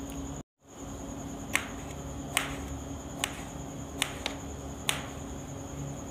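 Knife slicing a tomato and striking the tray beneath it: about six sharp clicks at uneven intervals, the first two the loudest.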